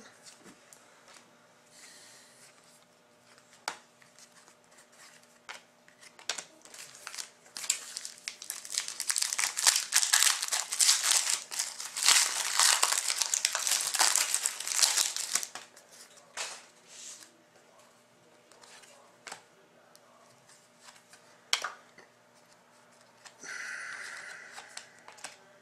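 A trading-card pack wrapper being torn open and crinkled by hand, the loudest stretch for about eight seconds in the middle. Before and after come scattered sharp clicks and rustles of cards being handled.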